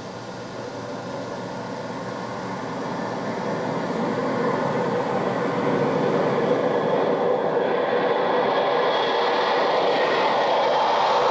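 Sound-effects recording of a train approaching, growing steadily louder over about seven seconds and then running on steadily, played back from a stereo cassette on a 1976 Sony TC-520CS cassette player.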